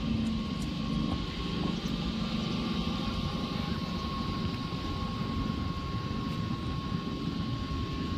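Steady machine hum with a low rumble and a thin constant whine, typical of the pump-house water pump running.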